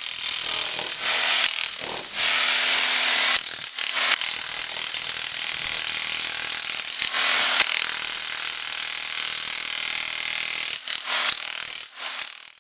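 A power tool running loudly with a steady high whine, stopping briefly several times and starting again, then cutting off suddenly at the end.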